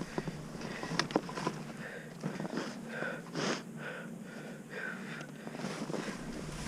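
A person breathing hard and raspily through the nose and mouth, in quick repeated breaths with a slight wheeze, winded and trying to catch his breath.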